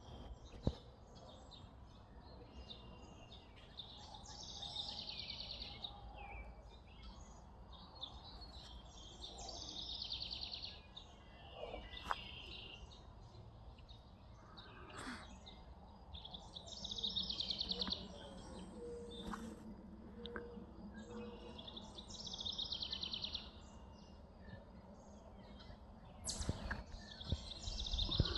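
Songbirds singing in trees, one repeating a rapid trilled song about two seconds long every five seconds or so, with other short chirps between, over a low steady background rumble.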